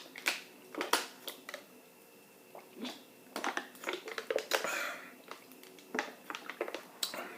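Scattered light clicks and taps from eating a plated meal, a dozen or so short sharp sounds at irregular intervals.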